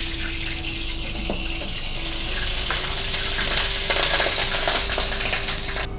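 Oil heating in a black wok over a commercial gas burner: a steady hiss of the burner flame, with the oil crackling and sizzling more densely in the second half, and a few light metal clinks. The hiss cuts off suddenly near the end.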